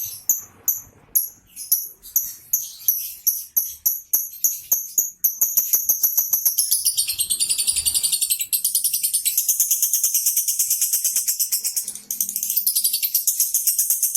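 Lovebird's 'ngekek' song: sharp high chirps that speed up over the first few seconds and merge into one long, fast, rattling trill, which breaks off briefly near the end and then carries on.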